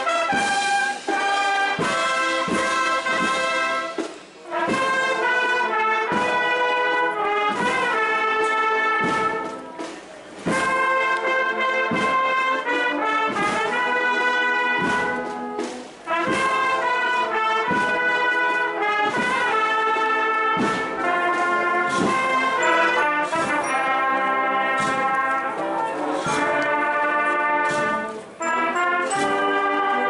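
Brass band playing a Holy Week processional march, trumpets and trombones over regular drum strokes, with a few short breaks between phrases.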